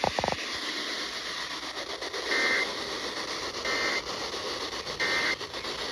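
Radio static hiss from a weakly received broadcast. About two seconds in come three short, identical bursts of warbling digital data tones, roughly a second and a half apart: the Emergency Alert System End of Message code that closes an alert.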